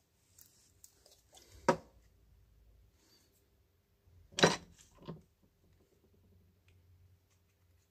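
A few sharp clicks and knocks from small hard parts and tools being handled, one about two seconds in and the loudest near the middle followed quickly by a lighter one, over a faint low hum.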